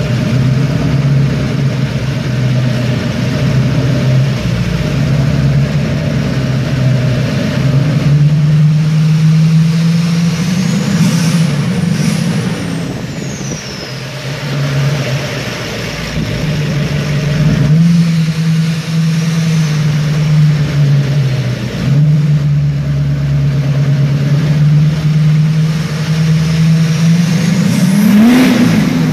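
LMM Duramax 6.6-litre V8 turbo-diesel in a 2010 Camaro SS, driving with a steady engine note that rises briefly several times as it is given throttle. A high whistle, which fits the turbocharger spooling, rises and falls in the middle and rises again near the end.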